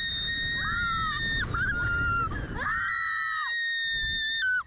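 A young woman screaming in terror as a Slingshot reverse-bungee ride launches her into the air. There are three long, high-pitched, held screams, and the last cuts off sharply near the end, over a low rush of noise.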